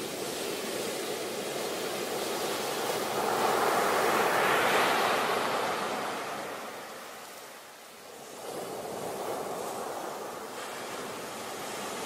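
Ocean surf: waves breaking and foaming up the beach. The rush swells to its loudest about four to five seconds in, eases off, then builds again with the next wave.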